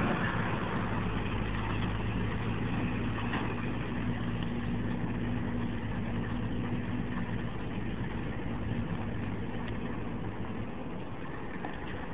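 Heavy diesel engine running at a steady idle, its low hum slowly growing fainter.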